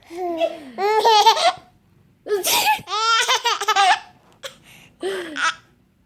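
A baby laughing hard in high-pitched bouts, the longest about a second in and from two to four seconds in, with a shorter laugh near the end.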